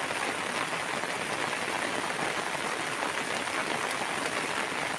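Heavy rain falling steadily on tea bushes: a dense, even hiss with no break.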